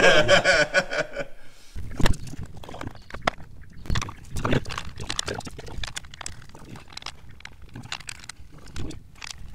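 Irregular clicks and light knocks of metal parts being handled as a rocker cover is set back onto a diesel engine's cylinder head.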